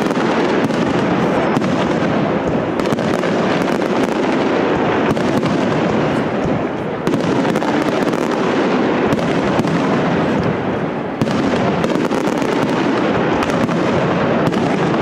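Aerial fireworks display: shells bursting in a dense, continuous barrage of bangs and crackle.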